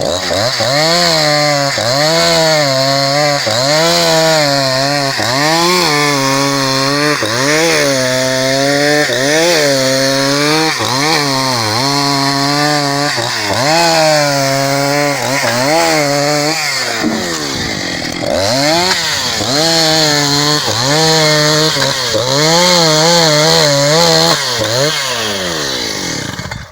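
Husqvarna 272 XP two-stroke chainsaw ripping cedar lengthwise, its engine pitch dipping and recovering about once a second as the chain loads in the cut. About two-thirds of the way through the revs drop away briefly, then pick up and it keeps cutting.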